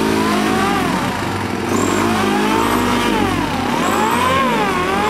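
An engine revving up and down several times, its pitch rising and falling in smooth sweeps.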